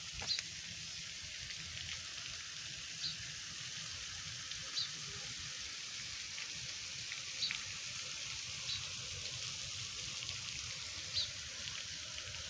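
Steady hiss of running water, with a bird giving short high calls about six times, irregularly spaced a second or two apart.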